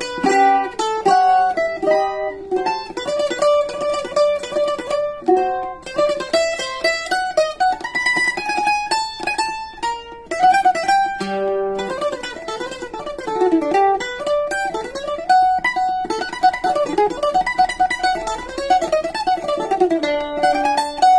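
Brazilian bandolim (flat-backed mandolin) picked continuously, playing the melody of a waltz in quick runs of notes over some lower chord notes.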